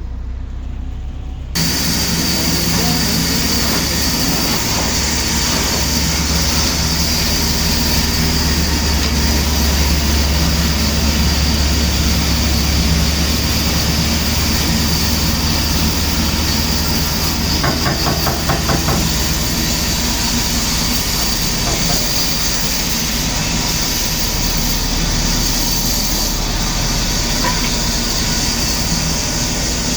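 Heavy machinery running loudly and steadily, with a deep hum under a constant high whine. It starts abruptly about a second and a half in.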